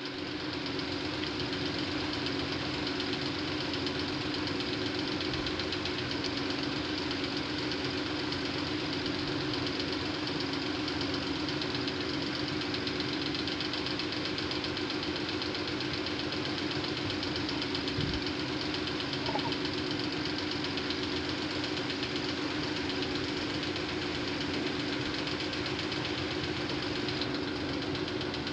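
A steady mechanical running sound, like an engine idling, with a fast, even pulse. A single low thump comes about two-thirds of the way through.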